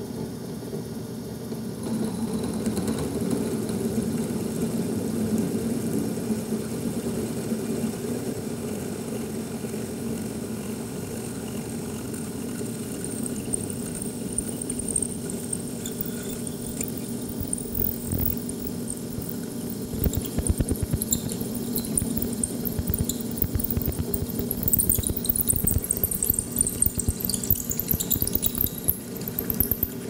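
Delta drill press running steadily while a quarter-inch cobalt bit is fed slowly into a steel air fitting, boring out its passage. There is a high squeal of the bit cutting partway through, then, from about twenty seconds in, irregular scraping and crackling as the bit bites and chips break away.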